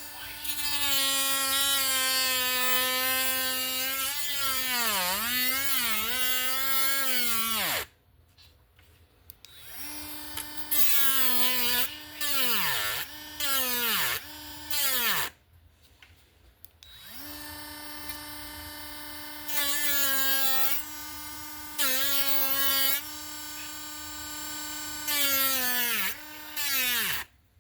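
Handheld Dremel rotary tool cutting into the wood of a popper lure's mouth. It gives a high, steady motor whine that dips in pitch when the bit bites, with louder rasping spells while it cuts. The tool is switched off and winds down several times, then started up again.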